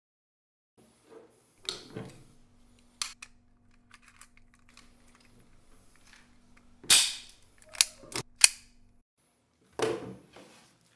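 Airsoft pistol being handled and fired: a string of sharp cracks with small mechanical clicks between them, the loudest shots coming in the second half, two of them in quick succession a little after eight seconds in.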